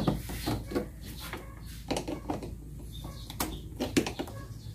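Pliers and hands working on a car battery's terminal clamps: irregular light metal clicks and taps, a dozen or so scattered through, over a low steady hum.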